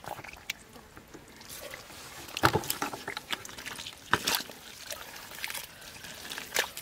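Bare hands digging and scooping through wet mud, making irregular wet squelches and splashes, with the loudest ones about two and a half seconds in and again around four seconds.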